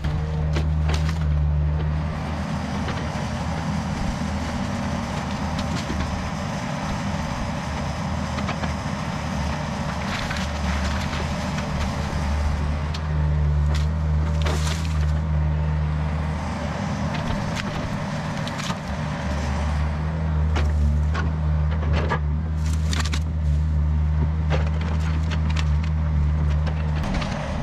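Yanmar VIO50 mini excavator's diesel engine running steadily under working load, with sharp cracks and snaps of branches breaking as the machine pushes through brush and a small tree; the loudest crack comes about halfway through.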